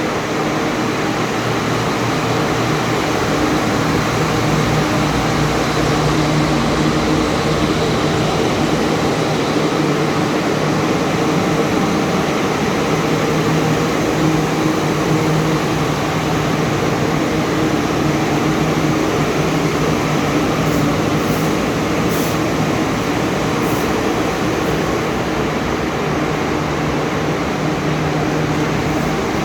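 Steady drone of electric fans running, with a low motor hum underneath, loud and unbroken, the noise that runs all night.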